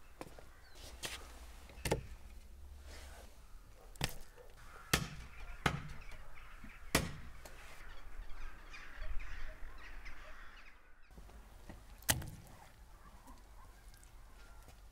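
Crows cawing from a flock, with several sharp knocks spread through, the loudest sounds, about a second or two apart in the first seven seconds and once more about twelve seconds in.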